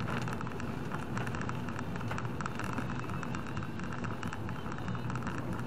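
Heavy rain striking a car's windshield and roof as many fine ticks, heard from inside the moving car over a steady low rumble of engine and tyres on a wet road.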